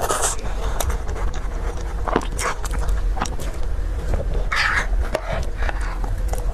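Close-miked eating sounds: irregular chewing, biting and mouth clicks over a steady low hum.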